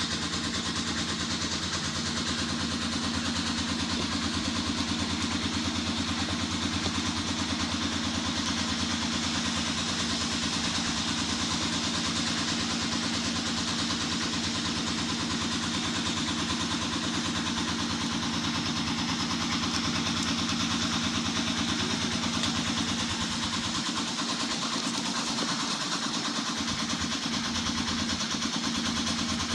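A steady, unchanging engine-like hum, running evenly at an idle with a constant hiss above it.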